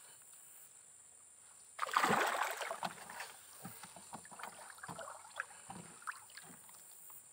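Water splashing beside a small boat: a sudden loud splash about two seconds in, then smaller swishes and knocks.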